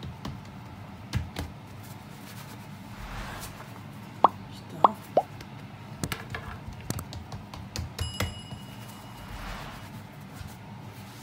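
Soft taps and rustles of hands patting and handling flattened barley dough on a wooden board. Over them, a subscribe-button sound effect: three quick pops about four to five seconds in, then a short bell ding about eight seconds in.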